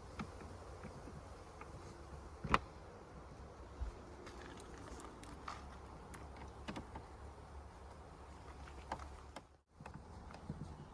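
Scattered small clicks and taps of metal parts being handled while the Airstream's door latch assembly is refitted and screwed back on, with one sharper click about two and a half seconds in, over a low steady hum.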